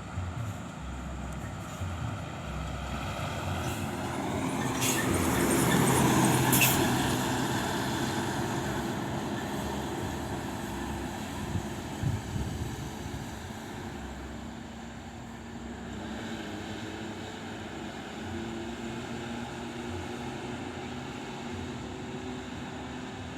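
A bus passing on the road, its engine and tyre noise swelling to its loudest about six seconds in and then fading, with a short hiss or two at the peak. After it, steady traffic and engine noise run on, with no clear horn blast.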